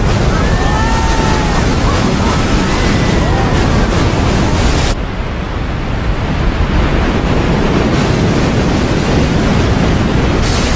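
Film sound effect of a tsunami: a loud, steady rushing roar of crashing water. In the first few seconds, people's screams and shouts rise and fall over it.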